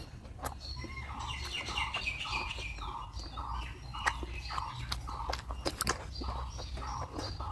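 Bird calls repeating steadily about twice a second, with higher chirps mixed in, over scattered crunchy clicks of eating and chewing.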